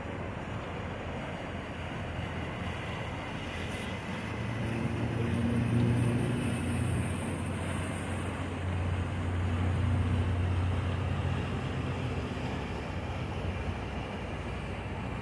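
A motor yacht's engines running at low speed as it passes close by. A low, steady drone grows louder about five seconds in and again around the middle, over a wash of water and background noise.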